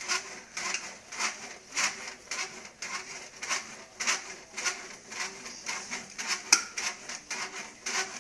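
Baby doorway jumper creaking and clicking with each bounce, in a steady rhythm of about two a second.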